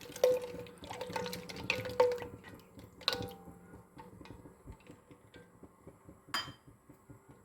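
A pot of chicken broth heating as frozen stock melts, coming up to the boil: irregular small pops, drips and clicks of liquid. Several stronger ones come in the first three seconds and there is one sharper click near the end.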